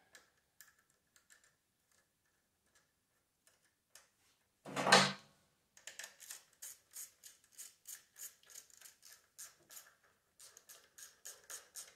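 Small ratchet wrench clicking in a steady run of about three clicks a second through the second half, as a small bolt is snugged by hand. A single louder knock comes about five seconds in, with faint metal taps before it.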